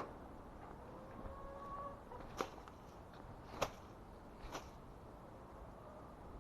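Three sharp, short clicks or taps, about a second apart, over a faint low background rumble.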